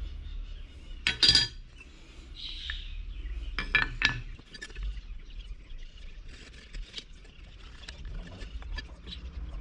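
A steel knife blade and wooden handle scales being handled and set down on a workbench: a sharp clink about a second in and two more close together near four seconds, then faint light ticks and scraping as the pieces are positioned and marked.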